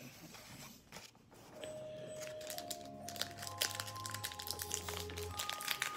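Foil booster-pack wrapper crinkling and tearing as it is worked open by hand, starting after a near-quiet first second and a half. Soft background music with several held notes plays under it.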